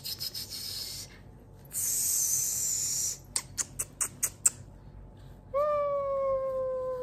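A six-month-old baby girl lets out one long coo about two-thirds of the way through, sliding slightly down in pitch. Before it come a rustling hiss and a quick run of about six sharp clicks.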